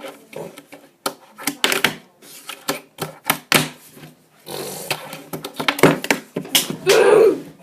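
Tech Deck fingerboard clacking and knocking on a hard surface in repeated sharp hits as tricks are tried and missed. A loud drawn-out vocal cry comes near the end.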